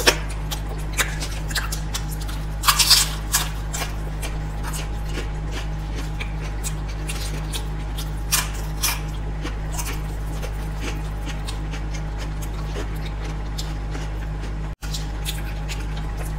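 Close-miked eating sounds: wet chewing and smacking on gravy-dipped momos, with sharp crunches as potato chips are bitten, over a steady low hum. The loudest crunching comes about three seconds in and again around eight seconds, and the sound drops out for an instant near the end.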